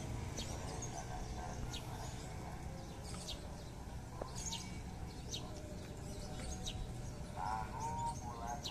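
Small birds chirping in short high notes over a steady low rumble, with a brief wavering call near the end.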